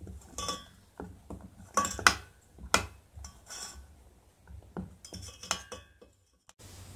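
Metal spoon clinking and scraping against a stainless steel bowl while fried chandrakala are turned over in sugar syrup: a string of sharp, separate clinks about a second apart.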